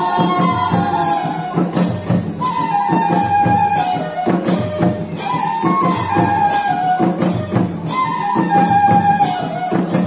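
Lahauli folk dance music: a short falling melodic phrase repeated about every two and a half seconds over a steady beat of drums and percussion.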